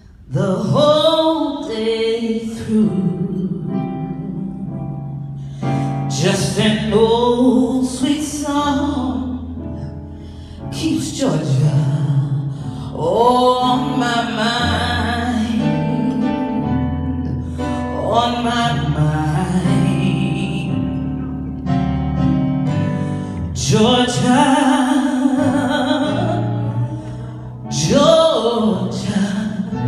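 A woman singing into a microphone over electric keyboard accompaniment, amplified in a large hall. Her voice slides up and down through long phrases of several seconds each, over held keyboard chords.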